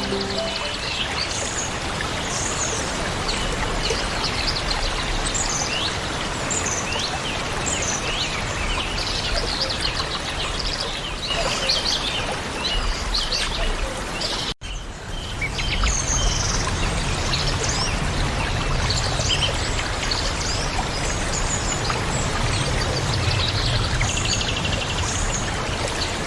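Steady rush of a waterfall with many songbirds chirping and calling over it. The sound cuts out for an instant about halfway through, as at a splice, and comes back with a little more low rumble in the water.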